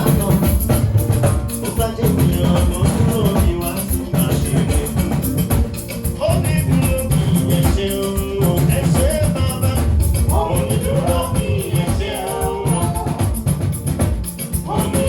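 Band music with drums, percussion and singing, played loud and without a break through a sound check.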